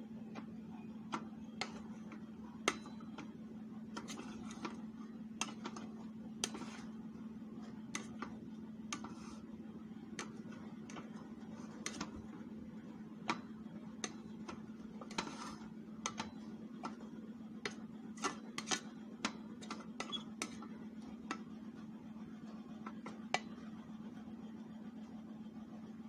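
A utensil stirring cooked sticky rice in a rice cooker's metal inner pot: irregular light clicks and taps against the pot, over a steady low hum.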